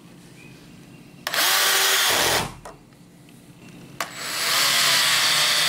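Cordless drill driving a wood screw into a wooden brace, its motor whining in two runs: a short one of about a second, then a longer one starting about four seconds in.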